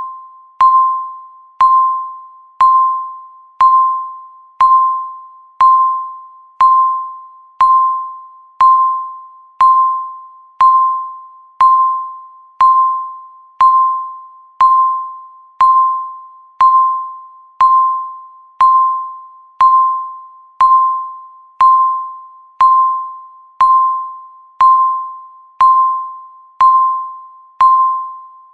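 Countdown timer beeps, one per second: each is a single bell-like tone with a sharp onset that fades away before the next.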